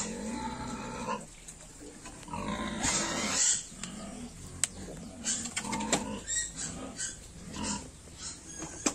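A group of piglets grunting and squealing in short, repeated calls, with a louder, higher squeal about three seconds in.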